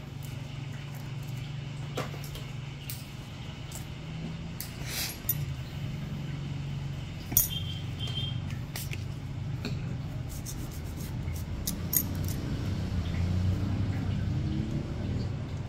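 Small metal nail instruments clicking and clinking now and then over a steady low hum, with one sharper clink about seven seconds in.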